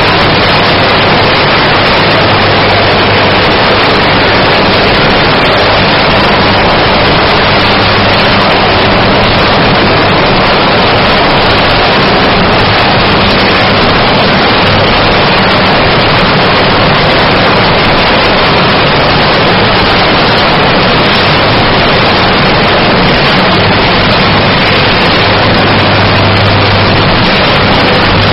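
80 MW electric arc furnace arcing during a melt: a loud, unbroken crackling noise with a steady low hum underneath.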